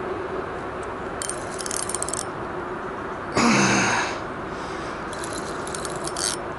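Spinning reel clicking on a lure rod in two bursts of about a second each, a fine rapid ratcheting. Between them comes one short, loud vocal sound from the angler, over a steady outdoor hiss.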